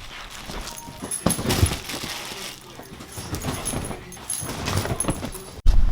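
A dog moving about, with irregular light clicks and taps, then a sudden loud knock near the end.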